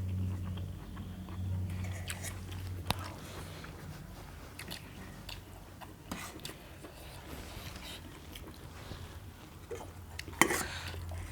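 A person chewing a mouthful of food, with small wet clicks and crunches, over a steady low hum. There is a sharp click about three seconds in, and a louder clatter of cutlery against a dish near the end.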